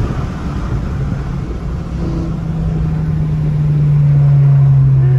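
Ford Focus engine and road noise heard from inside the cabin while driving: a low rumble that settles into a steady drone about two seconds in and grows louder in the second half.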